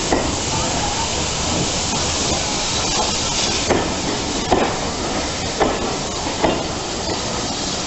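Passenger coaches of a steam-hauled train rolling slowly past, their wheels knocking about once a second over a steady hiss of steam from the locomotive.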